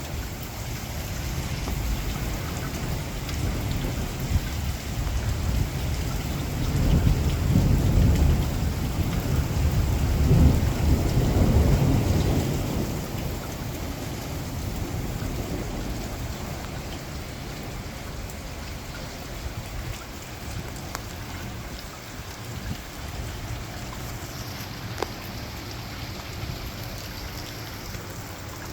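Heavy rain falling steadily with a long rolling thunder rumble that builds a few seconds in, is loudest around the middle, then fades out over several seconds.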